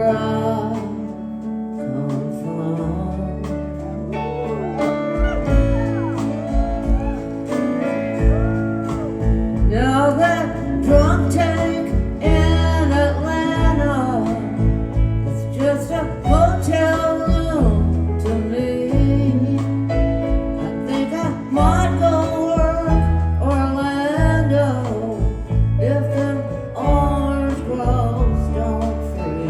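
Live rock band playing with guitars and a singer's voice carrying the melody; bass and drums come in fuller about five seconds in.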